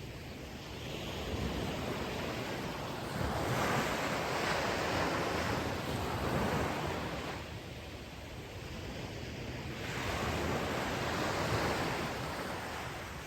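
Ocean surf: waves breaking and washing up on the shore, the rush of water swelling and fading every few seconds.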